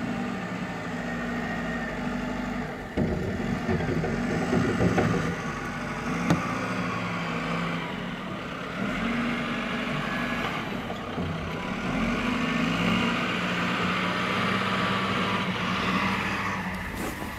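Snow plow truck's engine running steadily, with a couple of sharp knocks about three and six seconds in.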